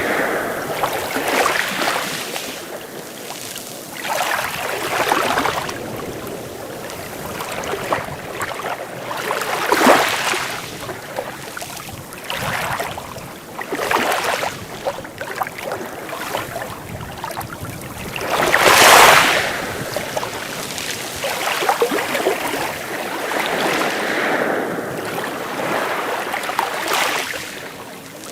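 Sea waves washing in and breaking, a rushing swell every few seconds. The loudest wave breaks about two-thirds of the way through.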